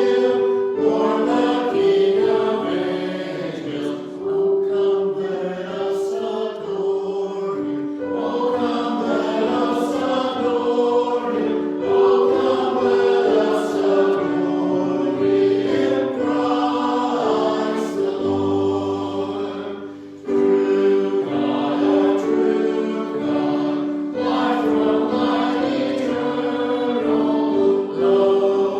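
Choir singing in long held notes, phrase by phrase, with a short break between phrases about twenty seconds in.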